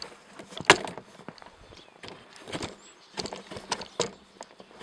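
A few irregularly spaced sharp knocks and clicks, with quieter handling noise between them, from work on a cast-iron wood stove being taken apart; no power tool is running.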